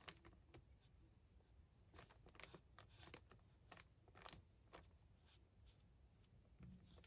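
Faint, short scratching strokes of a Touchfive alcohol marker's nib colouring the sticky side of thick clear tape, bunched together from about two seconds in, otherwise near silence.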